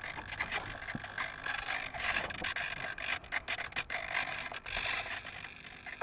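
Handling noise on a foam flying wing's onboard camera: irregular scraping and rubbing as the wing is carried and held, with a few sharp clicks in the middle.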